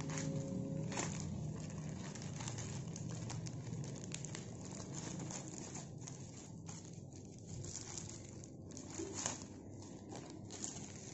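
A paper letter and envelope being handled and opened, with irregular crinkling and crackling of paper.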